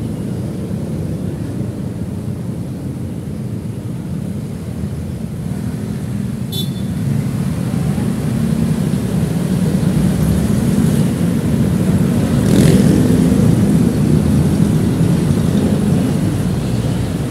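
City street traffic: a steady rumble of motorcycle and car engines that grows louder about halfway through as the traffic moves off from the light. A single click a little before the middle and a brief sharp sound a little after it stand out.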